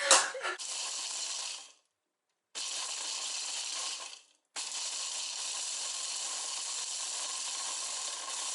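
Electric blender grinding dry oat flakes and nuts into flour, its motor running with a rattling grind. It runs in three stretches, stopping suddenly twice for a moment.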